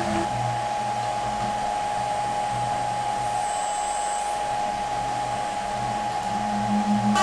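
5 kW symmetrical dual-gap in-wheel electric motor prototype running at steady speed, unloaded on a bench. It gives a steady mid-pitched whine over an airy rush.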